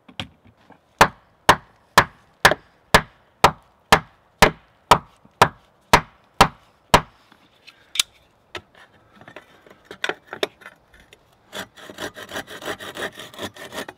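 Axe chopping into a log, sharp strikes about two a second for several seconds, then a few scattered knocks. Near the end a curved Silky pruning saw cuts through the wood in quick back-and-forth strokes.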